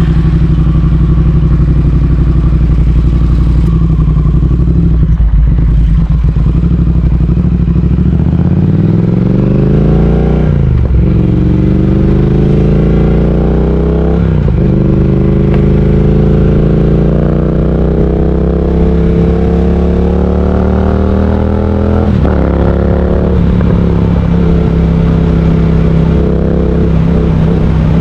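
Triumph Speed Twin 1200's parallel-twin engine idling for several seconds, then pulling away and accelerating up through the gears. The pitch climbs and drops back at each shift, about 11, 14 and 22 seconds in, then holds steady at a cruise.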